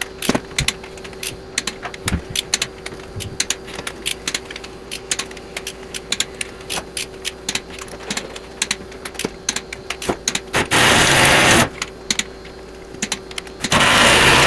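Torque wrench ratcheting in irregular runs of sharp clicks as the John Deere 400's cylinder head bolts are snugged down to about 60 foot-pounds. Two louder rasping stretches, each about a second long, come near the end, over a faint steady hum.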